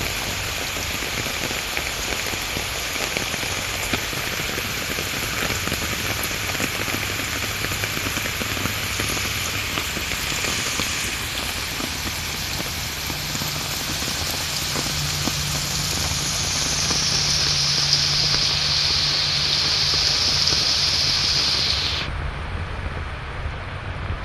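Steady rushing noise of water flowing over rocks placed to slow the current. A faint low hum joins about halfway through, and the higher hiss drops off abruptly near the end.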